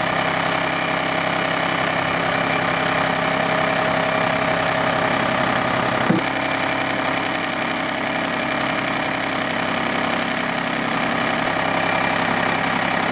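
John Deere 955 compact tractor's three-cylinder diesel engine running steadily while the front loader is lowered to the ground, with a single short clunk about six seconds in.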